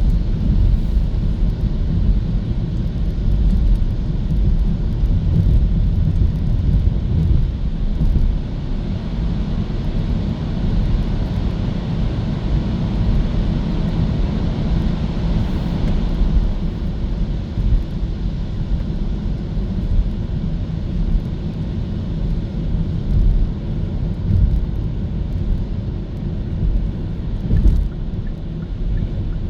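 Road and tyre noise from a Hyundai Kona EV driving, a steady low rumble with hiss and no engine note. A louder hiss swells for a few seconds around the middle and stops suddenly.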